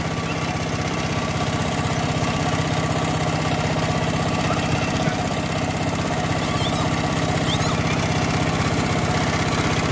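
Power tiller's single-cylinder diesel engine running steadily with an even, rapid beat.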